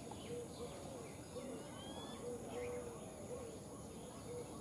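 Outdoor ambience of birds calling and chirping, including a short call repeated about twice a second and a brief rising whistle, over a steady high insect drone.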